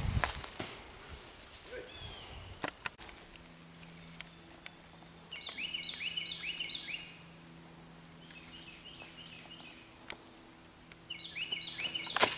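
A songbird singing three short bursts of quick repeated notes, about a second and a half each, over a faint steady low hum and a few sharp ticks.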